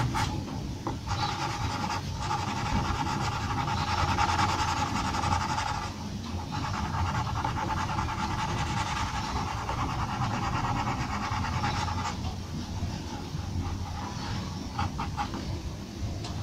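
Pencil scratching on paper while hatching fur. It runs as a long stretch of continuous scratchy shading with two short breaks, then turns into quick separate strokes, several a second, near the end.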